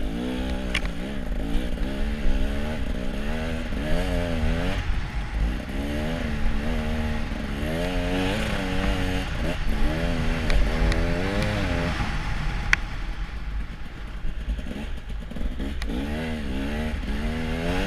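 An off-road machine's engine revving up and down over and over as it is ridden through soft snow, with a steady hiss of wind and snow behind it. The revs ease off for a few seconds about two-thirds of the way through, and there is one sharp click.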